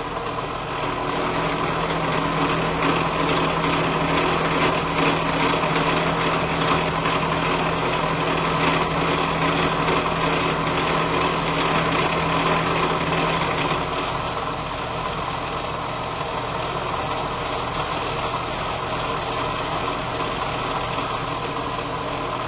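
Drill press running with a four-flute end mill cutting along the side of a groove in a metal workpiece as the cross-slide table is fed, a steady machine hum and cutting whirr. A low hum in it stops a little past halfway, and the machine runs on slightly quieter.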